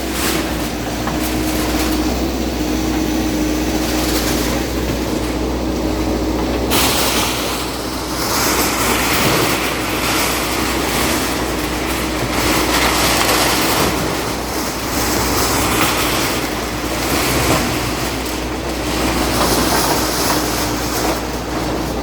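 Bulldozer's diesel engine running steadily with a constant mechanical rumble and clatter, growing louder and noisier about seven seconds in.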